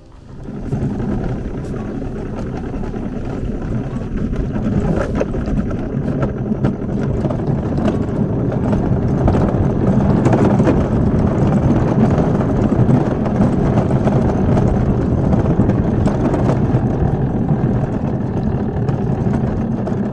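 Loud, steady rumbling running noise of a kart ride, starting suddenly and building gradually over the first ten seconds or so.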